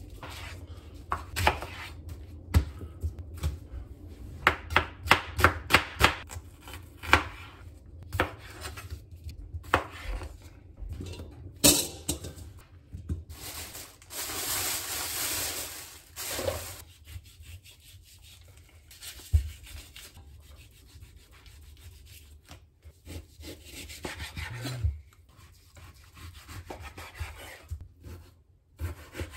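Chef's knife chopping yellow onions on a plastic cutting board: a run of sharp knife strikes through the first half. About halfway through, a couple of seconds of plastic wrapping rustling as a raw beef roast is unwrapped, then quieter, scattered knife cuts through raw beef on the board.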